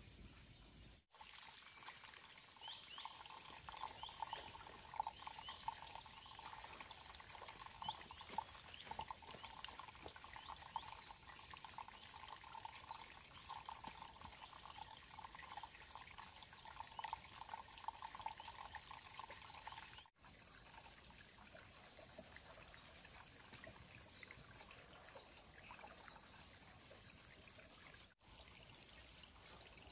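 Water trickling and splashing, with insects chirring steadily in the background; after a cut about two-thirds of the way through, the water sound falls away and mostly the insects remain.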